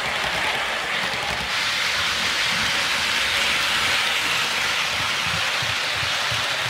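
Rapido HO scale GO Transit model train (F59PH locomotive with bilevel coaches) running along the track, its wheels and motor making a steady rushing rolling noise with a low uneven rumble underneath.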